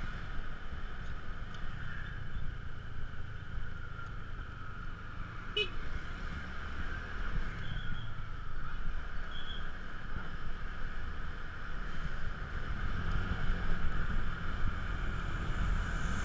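Motor scooter riding along a town street: its small engine runs steadily with a slightly wavering whine, under a low rumble of wind on the bike-mounted microphone.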